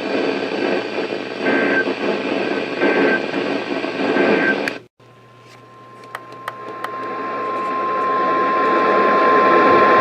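NOAA Weather Radio audio: radio static with three short digital bursts of the EAS end-of-message code, then a sudden dropout about five seconds in. The steady 1050 Hz weather-radio alert tone follows and grows louder, announcing the next warning.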